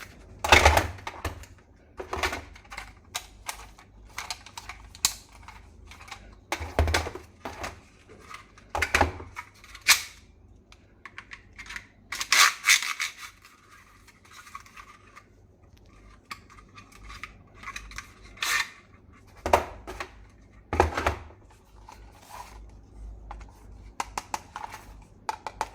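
Irregular clicks, knocks and rattles of hard plastic parts being handled, with a few louder knocks scattered through.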